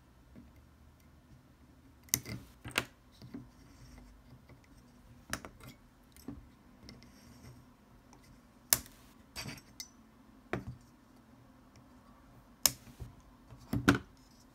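Small flush cutters snipping excess component leads on a soldered circuit board: a series of sharp clicks spaced irregularly, a second or several apart, with fainter ticks between.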